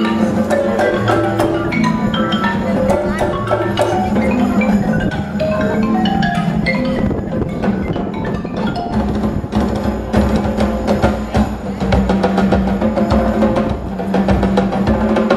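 Live percussion ensemble playing amplified over loudspeakers: mallet keyboards play quick melodic patterns over a held low note, with drum strokes becoming denser in the second half.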